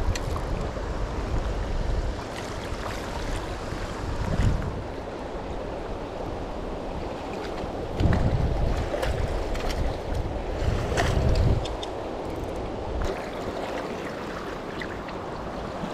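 Fast river current rushing steadily, with several low gusts of wind buffeting the microphone, the strongest about eight and eleven seconds in.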